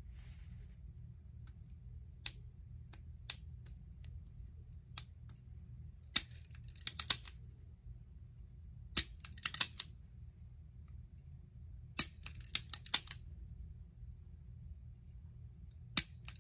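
Removed trigger group of a Charles Daly 601 DPS semi-auto shotgun being worked by hand: sharp metal clicks and snaps as the hammer is cocked and released. Single clicks come a few seconds in, then tight clusters of several clicks every three seconds or so. The trigger is catching, and it is being cycled to find where.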